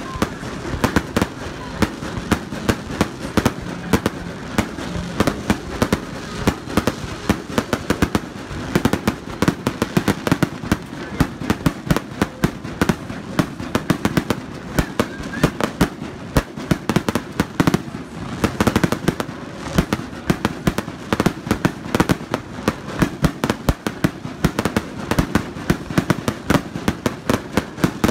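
A continuous, irregular barrage of sharp bangs and pops, several a second, over a steady lower background din.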